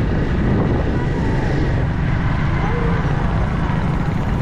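Motorcycle riding along a road: the engine runs steadily under a constant rush of wind on the microphone.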